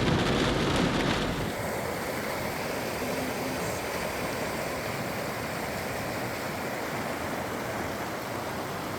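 Floodwater rushing after a heavy rain shower, a steady noisy rush of water. About a second and a half in, it changes abruptly from a louder, fuller rush to a quieter, steadier one.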